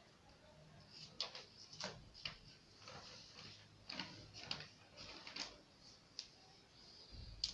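About ten faint, irregular light clicks and rustles from handling pattern paper and a tape measure on the work table.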